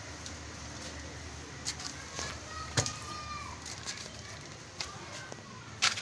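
Footsteps in slippers climbing concrete stairs: a few irregular slaps and clicks, the loudest about three seconds in and again near the end, over faint distant voices.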